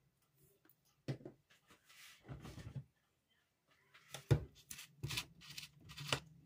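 Kitchen handling sounds as seasoning containers are handled over a bowl of chicken: a few knocks about a second in, a short rustle, then a run of sharp clicks and light clatter from about four seconds in.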